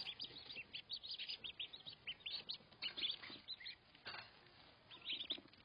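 Baby ducklings peeping, many short high chirps in quick succession that grow sparser after about four seconds, heard through the Arlo Q webcam's microphone.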